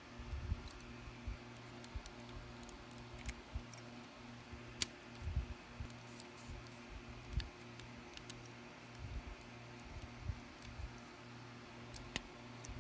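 Scattered small plastic clicks and taps as the snap-fit parts of a Bandai Buzz Lightyear plastic model kit are handled and pushed together, a few seconds apart, over a faint steady low hum.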